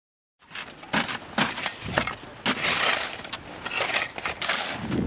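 Snow shovels striking, crunching and scraping into packed snow, in a string of sharp strikes that starts about half a second in.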